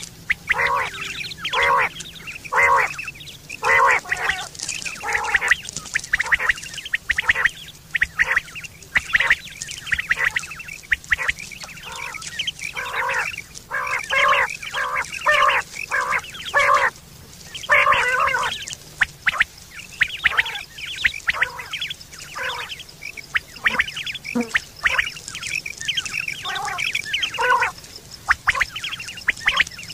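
Quail calling: short notes repeated in quick clusters of several at a time, with brief pauses between clusters.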